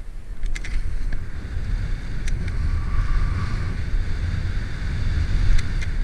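Wind buffeting the microphone as the skier moves, over the hiss of skis sliding on snow, with a few sharp clicks.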